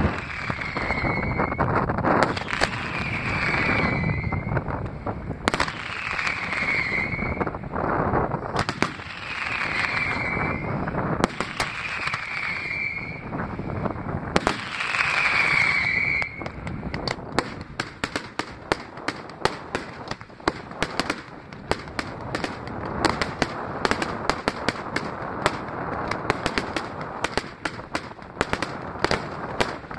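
Fireworks display. In the first half a whistle sounds every two to three seconds among the bangs, then rapid crackling and popping runs on to the end, with wind on the microphone.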